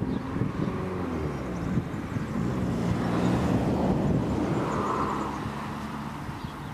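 An engine passing by: a steady drone whose pitch slides up and down, growing louder to about three seconds in, then fading away.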